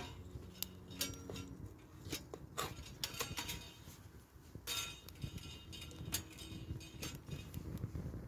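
Wood fire crackling with irregular sharp pops in an Onetigris Rubicoid folding wood stove, with sticks knocking against the stove's metal as they are fed in.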